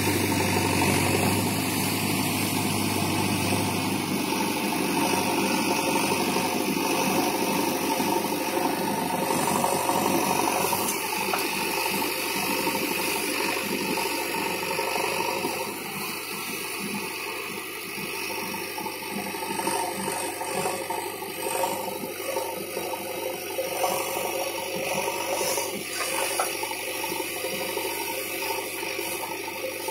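JCB 3DX Xtra backhoe loader's diesel engine running under load as the backhoe arm digs out and lifts a large clod of earth, with rattling from the machine. About halfway through, the engine noise drops and the rattling becomes more uneven.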